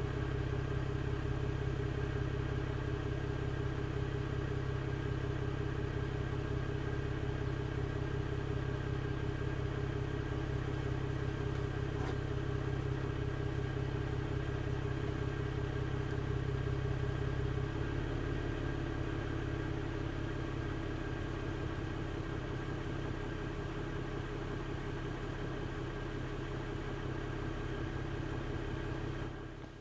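BMW 330i's N52 3.0-litre straight-six idling steadily through a BMW Performance rear exhaust with the middle silencer replaced by a straight pipe, on its raised cold-start idle. About eighteen seconds in the note changes and gets a little quieter as the engine control brings the warm-up idle down.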